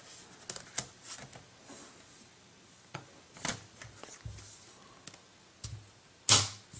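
The rubberized plastic back cover of a Barnes & Noble Nook e-reader being handled and clipped back onto the device: scattered light clicks and taps, with one louder click near the end.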